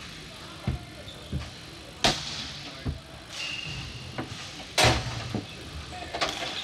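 Ball hockey play: sharp knocks and clacks of sticks, ball and rink boards, about eight in a few seconds, the loudest two about two and five seconds in. A short high squeak comes between them.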